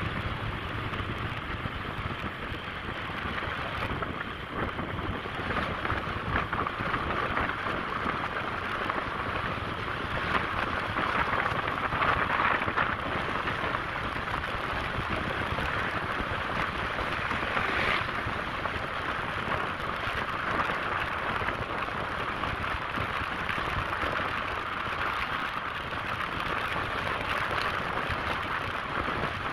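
Steady rushing noise of a motorcycle ride at speed, mostly wind and road noise over the onboard microphone, swelling a little around twelve seconds and again briefly around eighteen seconds in.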